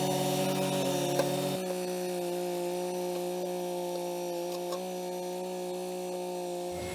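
Kubota BX23S sub-compact tractor's three-cylinder diesel engine running steadily. Its tone shifts about a second and a half in and again near the end, as load on the engine changes. There is a single sharp click about a second in.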